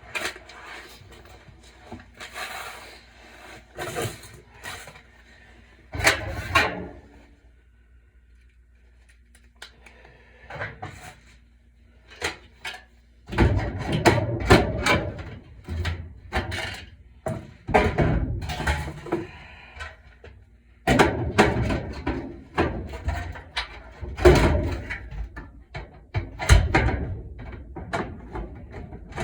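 Irregular knocks, clicks and rattles of parts and tools being handled on a furnace blower motor and its module, in bunches with a quieter spell in the middle, over a faint steady hum.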